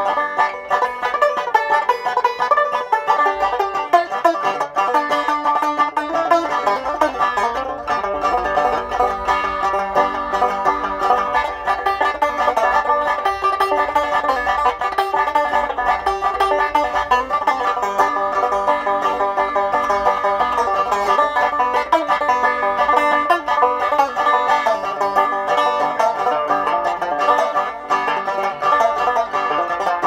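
Banjo played solo, a steady stream of quick plucked notes and chords.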